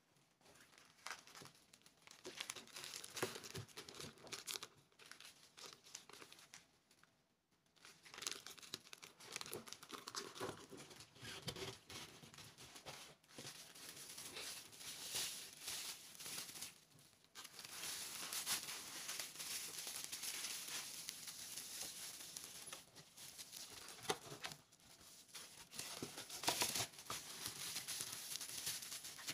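Plastic bubble wrap crinkling and rustling as it is handled and wrapped around a bamboo tube case and pushed into a cardboard box, with scattered light clicks and knocks. It is lighter for the first few seconds and fuller and steadier from about eight seconds in.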